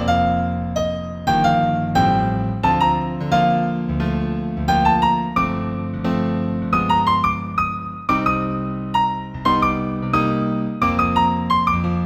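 Solo piano playing a slow new-age piece in B minor: a melody of struck, fading notes over held low chords, with quick rising runs of notes about two thirds of the way through and again near the end.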